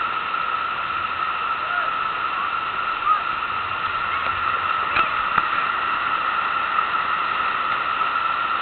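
Steady rush of a thick sheet of water pumped up over a FlowRider standing-wave surf machine, with a couple of short sharp clicks about five seconds in.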